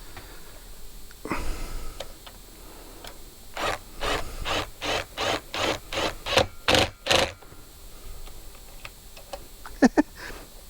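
A run of about a dozen short rubbing or scraping strokes, about three a second, from hand work at a workbench, with a few sharp clicks near the end.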